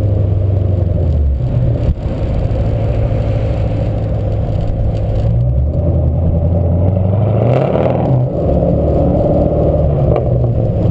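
A 2005 Pontiac GTO's 6.0-litre LS2 V8 running while the car slows and rolls off the drag strip after a quarter-mile pass. The engine note drops about a second and a half in, then climbs again between about five and seven seconds.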